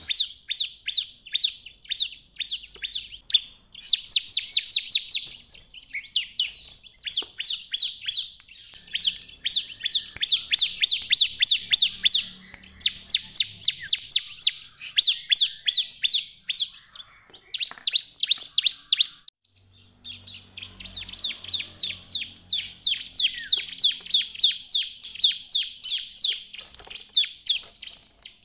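Bar-winged prinia (ciblek) in full song: rapid runs of sharp, high, repeated notes delivered in bursts with brief breaks, one longer break about two-thirds of the way through.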